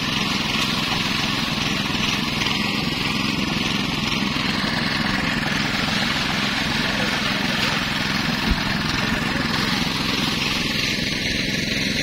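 Small gasoline engine driving a portable rice thresher, running steadily while bundles of rice stalks are fed into the drum and threshed grain sprays out. A single short knock about eight and a half seconds in.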